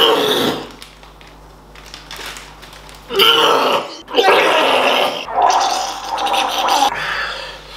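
A man gagging and retching into a plastic bag after a mouthful of food that made him sick: a short loud gag at the start, then a long stretch of heaving from about three seconds in.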